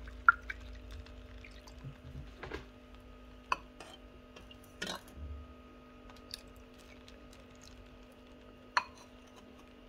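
Aquarium water being scooped into a small container and poured, with a few scattered splashes and drips over a steady hum.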